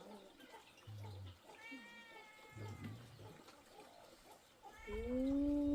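An animal's drawn-out calls: a couple of faint ones, then a loud one near the end that rises and falls in pitch.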